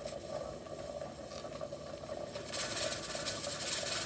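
Pressure canner with a 10-pound weighted regulator on its vent, hissing steam over a steady hum. The hiss swells about two and a half seconds in as the weight starts to lift and vent: the canner is coming up to 10 pounds of pressure.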